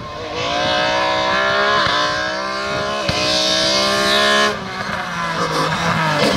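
White BMW race car's engine at full throttle, accelerating hard with two quick upshifts where the pitch drops back. It lifts off sharply about four and a half seconds in, then builds again as it comes closer.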